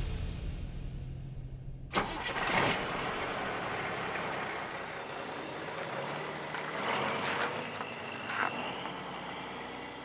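Music fades out; about two seconds in a sharp click is followed by a vehicle engine running low and steady, swelling briefly a couple of times.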